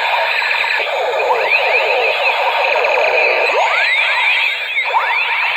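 Several battery-powered light-up toy guns sounding their electronic firing effects at once: a steady, jumbled din of overlapping rising and falling electronic zaps and wails.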